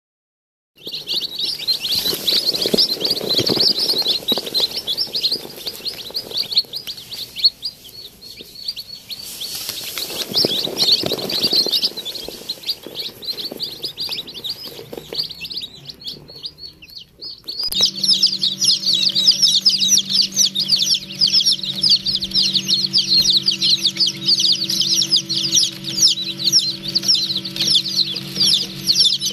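A crowd of young chicks peeping continuously, a dense high-pitched cheeping. About two-thirds of the way through the peeping gets denser and a steady low hum joins in.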